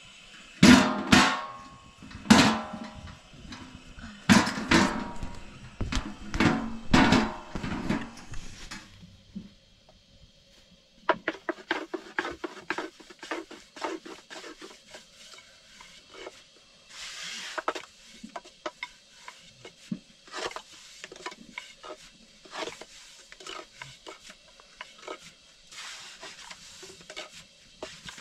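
A few loud metal clanks that ring on, from a domed iron bread griddle and its utensils. Then, about eleven seconds in, a long thin wooden rolling pin clicks and taps in quick, uneven strokes as it rolls flatbread dough on a round wooden board.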